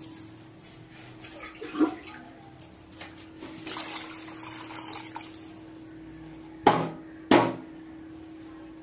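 Water pouring in a steady stream into a pot of mutton curry, splashing into the liquid, with a faint steady hum underneath. Two sharp knocks come about half a second apart near the end.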